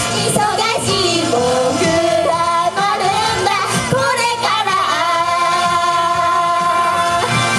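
Female idol group singing a pop song live over its accompanying music.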